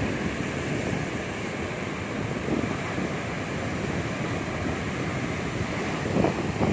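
Ocean surf: a steady wash of breaking waves, with wind on the microphone, swelling a little louder about six seconds in.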